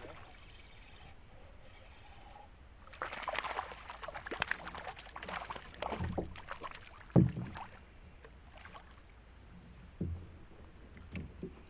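Splashing and clatter as a hooked smallmouth bass is fought and lifted from the water beside a kayak. The commotion runs dense for several seconds in the middle, with a sharp thump about seven seconds in and a smaller one near the end.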